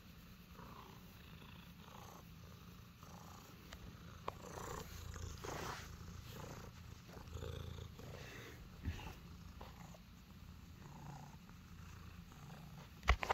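Domestic cat purring steadily while being stroked, with soft rustling of hand and fur close to the microphone. A couple of sharp knocks come near the end.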